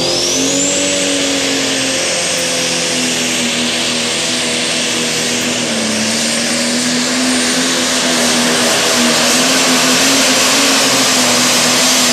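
Diesel engine of a Super Stock/Pro Stock pulling tractor at full throttle, hauling the weight sled down the track, loud and steady in pitch. A thin high whistle, typical of the turbocharger, rises over the first second and then holds.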